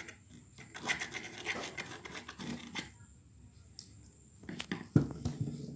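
Scratchy, crackly sounds of slime being stirred and worked in a container, in two bouts, with a louder dull knock about five seconds in.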